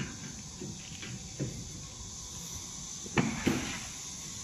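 Lid of the storage compartment on a fiber laser welding machine cabinet being lowered and shut: a few light knocks, then two sharp knocks about three seconds in as it closes.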